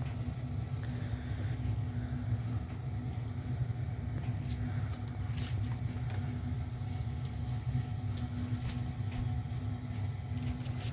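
Washing machine running a rinse cycle, its motor humming steadily as the drum turns slowly to even out the load, with a few faint ticks.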